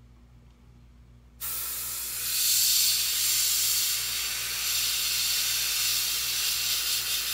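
Airbrush spraying paint: a steady hiss of air that starts suddenly about one and a half seconds in and grows louder about a second later.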